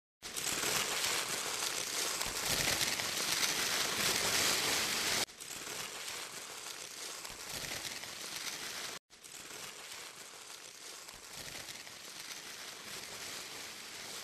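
Paper being crumpled and rustled, a dense crackle. It is loudest for the first five seconds, drops suddenly to a softer level, cuts out briefly about nine seconds in, then carries on softly.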